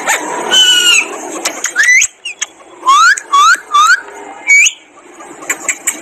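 Alexandrine parakeet calling: a call with stacked tones just before a second in, then short rising whistled notes, three in quick succession about three seconds in and another soon after, with scattered sharp clicks between.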